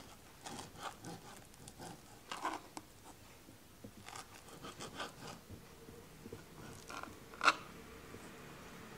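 Kitchen knife cutting raw boneless chicken on a cutting board: faint, irregular taps and scrapes as the blade slices through the meat and meets the board, with one sharper knock about seven and a half seconds in.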